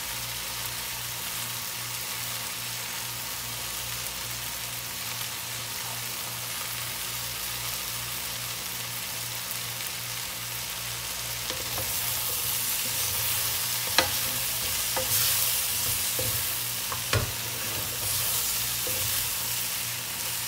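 Chicken wings, onions and peppers sizzling in a wok. From about twelve seconds in the frying gets louder as a spatula stirs and tosses them, with two sharp knocks of the spatula against the pan.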